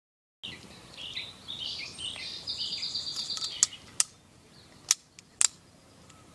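Chirping birdsong for about three seconds. Then four sharp metallic clicks, typical of a butterfly knife's handles and blade clacking as it is flipped.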